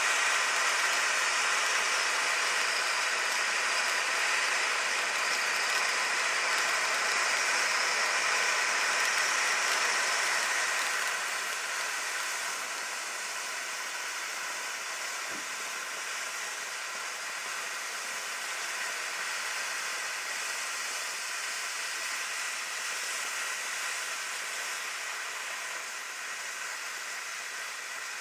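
Ground firework fountain burning with a steady hiss of spraying sparks. About ten seconds in it drops noticeably in loudness and then carries on steadily.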